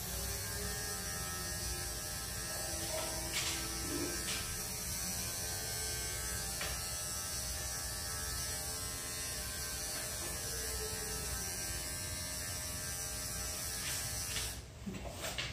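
Cordless electric dog-grooming clipper running steadily as it trims a Schnauzer's leg hair, an even buzz that stops about a second before the end.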